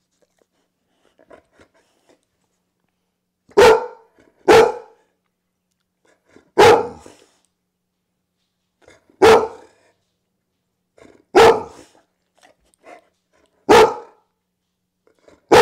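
A pit bull-type dog barking in single barks, about seven of them, the first two close together and then one every two seconds or so. It is demand barking at food held up just out of its reach.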